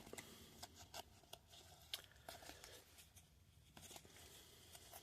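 Faint, scattered clicks and rustles of trading cards being handled and sorted by hand.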